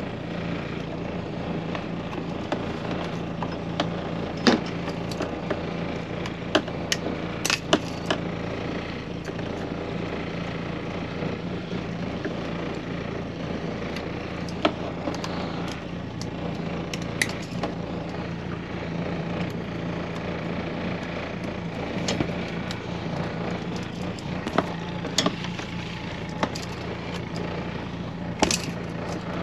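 A motor running steadily with an even hum, with scattered sharp clicks and knocks over it.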